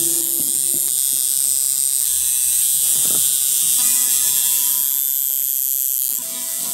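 Tattoo machine buzzing steadily, dropping off briefly near the end.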